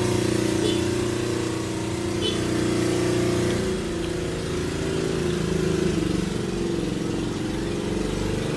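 An engine running steadily, a low drone whose pitch pattern shifts slightly about four seconds in.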